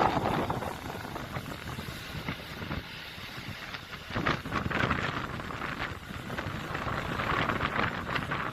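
Wind buffeting the microphone aboard a yacht, a rushing noise that swells and eases in gusts.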